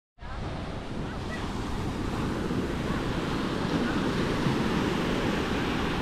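Atlantic surf breaking and washing up a sand beach in a steady rush that swells a little midway, with wind buffeting the microphone.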